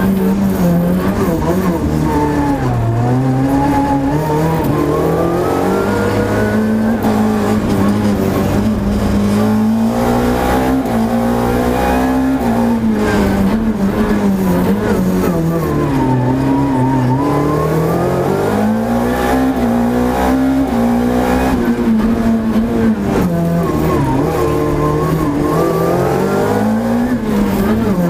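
Renault Clio FA7 rally car's engine at full effort, its note climbing and dropping again and again as the car accelerates hard and slows for corners.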